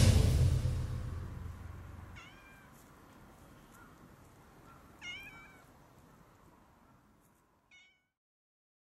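Background music fading out over the first two seconds, then a domestic cat meowing three times: a faint meow about two seconds in, a louder one about five seconds in, and a short one near the end.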